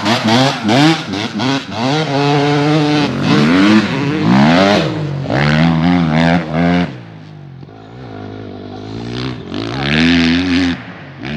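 Dirt bike engines revving hard, the first a Yamaha YZ250 two-stroke passing close. The pitch climbs repeatedly as the bikes accelerate through the gears. The sound drops back about seven seconds in, then revs up loud again near the end before falling off suddenly.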